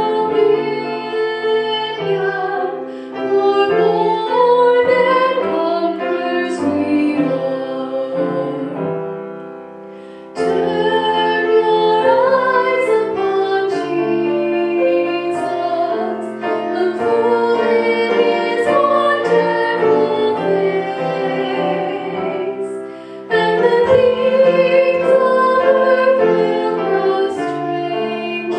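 A woman sings a worship song into a microphone with grand piano accompaniment. The music dips briefly between phrases about ten seconds in and again near twenty-three seconds, then comes back in full.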